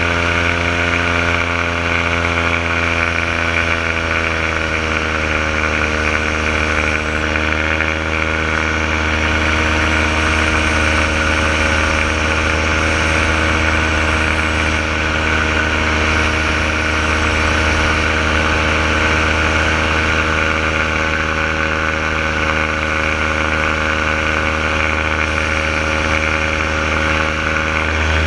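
Renegade paramotor's engine and propeller running steadily in flight, heard close up from the pilot's harness. About four seconds in the engine note drops a little, then holds steady.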